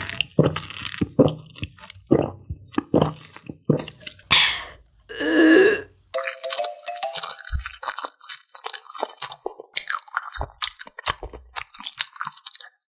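Close-up sipping and slurping of canned grape soda through a straw, with two louder, longer sounds a little past four and five seconds in. From about six seconds in comes close, sticky chewing of a grilled marshmallow dipped in fondue.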